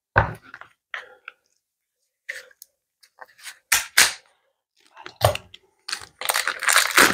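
Plastic packaging of a shampoo bar being picked at and handled by hand: scattered light clicks and taps, a few sharper knocks, then a louder stretch of crinkling near the end as the wrapper is worked at.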